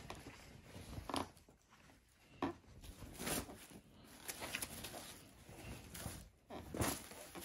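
Fabric and a plastic mailer bag rustling as folded clothes are handled and pulled from the package, in irregular brief swishes with a few louder ones.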